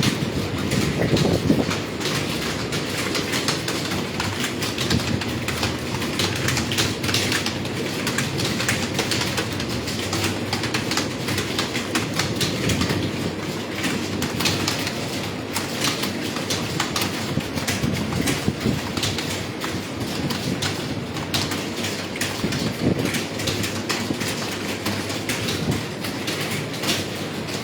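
Several computer keyboards being typed on at once: a dense, continuous run of key clicks.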